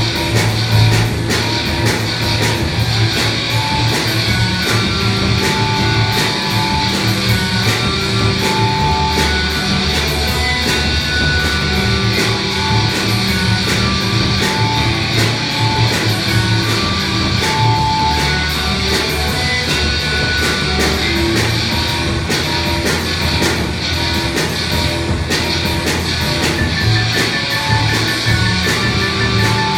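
A robot band playing rock music live: guitar over a fast, steady drum beat.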